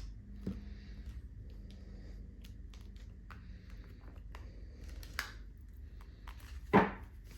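Tarot cards being shuffled and handled, a run of faint irregular clicks and light ticks, with one brief louder thump near the end.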